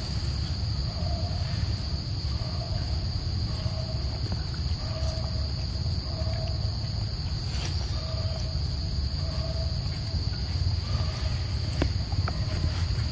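Insects droning steadily at a high pitch, with a short call repeated about once a second underneath and a constant low rumble. A few faint clicks come near the end.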